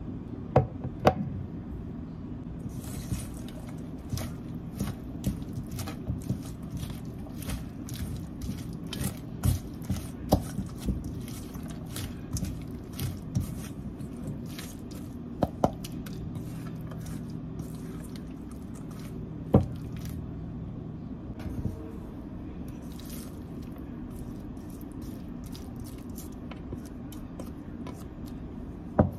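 A spatula stirring shredded cabbage and carrot with mayonnaise in a stainless steel bowl. The mixing makes wet squishing and scraping, with a few sharp knocks of the spatula against the bowl, over a steady low hum.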